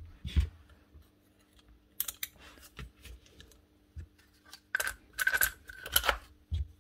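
Scattered clicks and light knocks of hard plastic and metal parts as the sleeve and cap are fitted over a Bosch GBH 5-40 DCE hammer's tool holder. A denser run of clicks with a few short squeaks comes about five seconds in.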